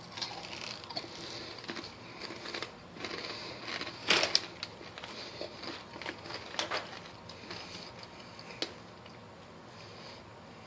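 A person biting and chewing a mouthful of crunchy Munchies Totally Ranch snack mix (corn chips, tortilla chips and pretzels), with irregular crunches, the loudest about four seconds in, thinning out near the end.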